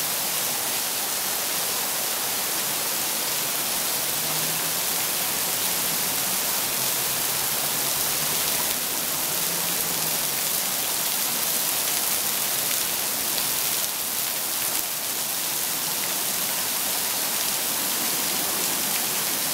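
Heavy tropical downpour: a steady, dense hiss of rain.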